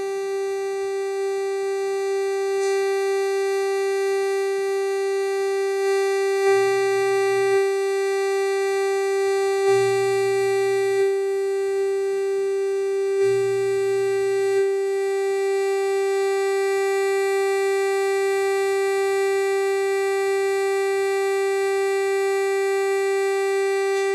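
Powertran Transcendent 2000 monosynth's single VCO holding one steady, buzzy note that drones without a break because the ADSR envelope is bypassed. It grows a little louder over the first few seconds as the oscillator's gain is raised by a resistance change in its gain staging. A few faint clicks and short low hums come in near the middle.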